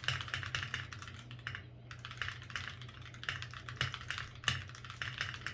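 Typing on an Akko ACR Pro 68 gasket-mount mechanical keyboard with a polycarbonate plate and factory-unlubricated Akko Crystal linear switches: a quick, irregular run of keystroke clacks.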